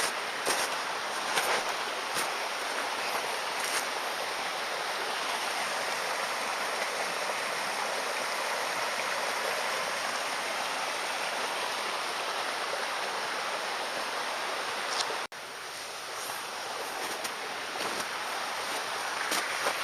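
Steady rushing of flowing water, like a stream or river, with a few sharp clicks in the first few seconds and an abrupt break about fifteen seconds in.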